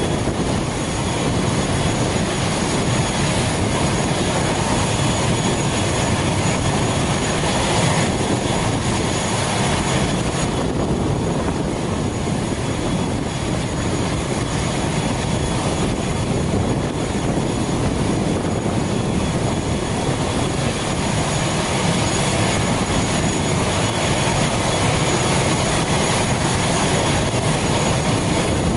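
Turbine engine of a parked ATR 72 turboprop airliner running steadily: an even rush with a thin, constant high whine over it.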